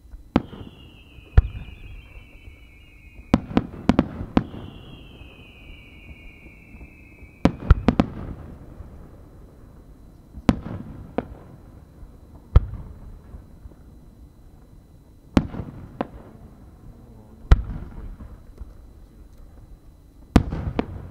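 Aerial fireworks shells bursting overhead: about a dozen sharp bangs, each trailing off in a rolling echo, spaced a second to a few seconds apart. In the first eight seconds two whistling shells sound, each a long whistle that drops slightly in pitch over about three seconds.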